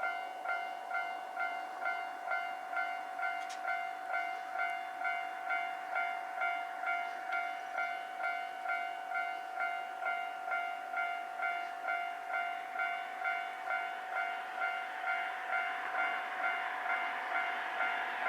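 Japanese level-crossing warning bell ringing steadily at about one and a half electronic dings a second. In the last few seconds the rushing noise of an approaching train grows under it.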